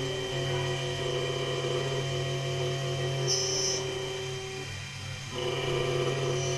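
CSH008 automatic key cutting machine milling a key blank with a 1.5 mm milling cutter: a steady motor hum and whine that shifts in pitch every second or two as the cutter moves along the blade. A short high squeal comes about halfway, and the sound dips briefly near the end before picking up again.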